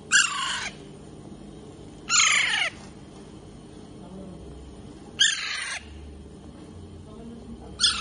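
Young Alexandrine parakeets squawking: four harsh calls about two to three seconds apart, each about half a second long and falling in pitch.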